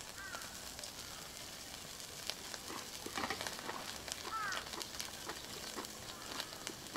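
Duck meat sizzling as it grills, with a steady hiss and scattered small crackles and pops.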